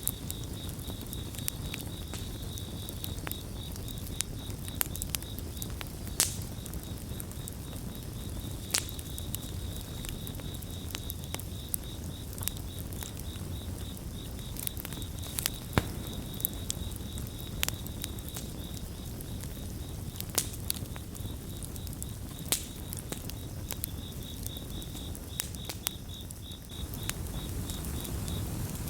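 Campfire crackling, with sharp pops scattered irregularly over a low steady rumble, and crickets chirping in a high, fast-pulsing trill that drops out near the end.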